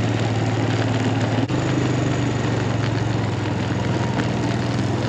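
Four-wheeler (ATV) engine running steadily at low speed, with a brief dropout about a second and a half in and a slightly higher pitch after it.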